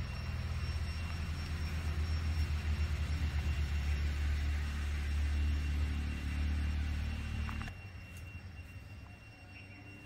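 A low, throbbing engine rumble that stops suddenly about three quarters of the way through, over a steady high-pitched buzz of cicadas.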